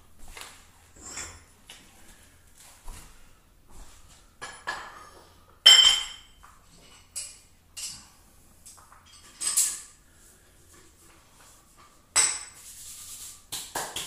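Metal clinking and rattling as a Rolling Thunder grip handle and its swivel hook are handled and clipped onto a plate-loaded pin. Several separate clinks, the loudest about six seconds in and again about twelve seconds in.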